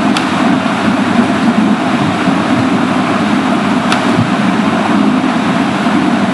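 Steady, loud hum and hiss of background noise, like a fan, with two faint clicks, one just after the start and one about four seconds in.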